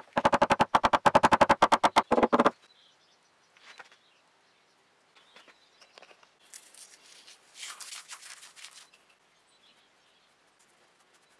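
A rapid, even train of sharp clicks, about ten a second, stops abruptly after two and a half seconds while a forged twisted steel handle is being fitted to a wooden log chest. About six seconds in comes a fainter scratchy rubbing.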